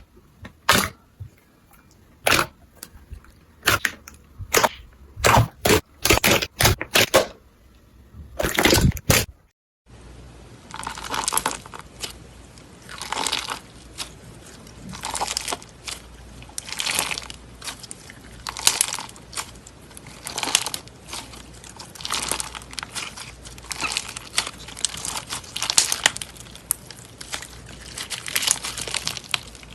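Slime being handled: sharp, irregular pops and clicks for about the first nine seconds, then, after a brief break, crunchy slime crackling as it is squeezed in slow repeated presses, about one every two seconds.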